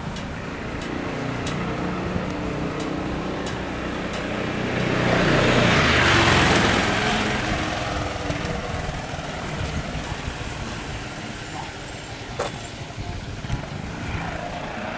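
A motor scooter passes close by. Its engine builds to a loud rush about five to seven seconds in, then fades as it rides off, over a steady outdoor street background.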